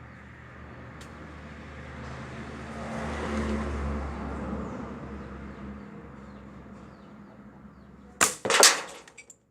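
A rushing noise swells and fades, then near the end come two sharp cracks about half a second apart, the second the loudest: a shot fired at a one-real coin propped up ten metres away.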